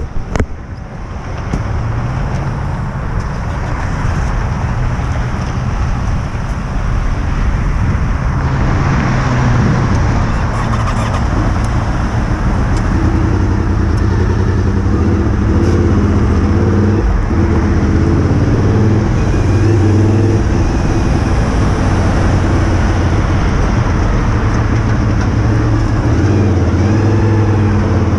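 Motorcycle engine running as the bike pulls away and rides in slow freeway traffic, its pitch rising and falling with the throttle over a steady rushing noise. A few knocks from the camera being handled right at the start.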